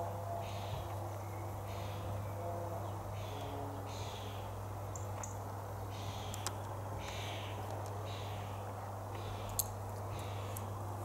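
Outdoor garden ambience: a steady low hum under an even background hiss, with soft swishing sounds that come and go about once a second, a few faint bird calls, and a couple of light clicks.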